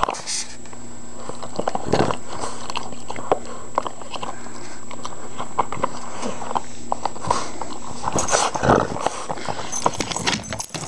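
Boston terrier puppy mouthing and chewing a tennis ball and a squeaky toy close to the microphone: irregular wet clicks, knocks and bumps, with a louder cluster about eight seconds in.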